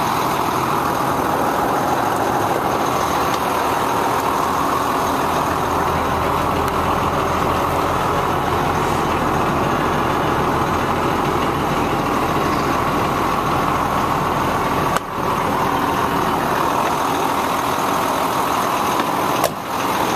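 International DT466 inline-six diesel engine of a 2005 International 4400 truck idling steadily. The sound cuts out briefly twice near the end.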